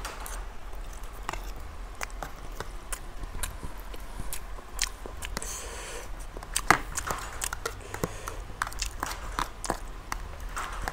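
Close-up eating sounds of a person chewing a mouthful of ramen noodles, with wet mouth clicks and the occasional clink and scrape of a metal spoon in a plastic container.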